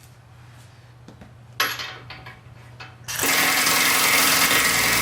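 A few faint clicks and a short clatter, then, about three seconds in, a power tool starts and runs loud and steady.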